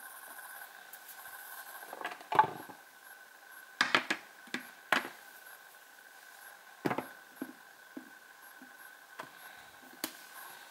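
Handling noise: a series of sharp clicks and knocks as a smartphone and a black metal wire phone stand are moved and set down on a hard tabletop, about eight in all and loudest in the first half. Under them runs a faint steady hum.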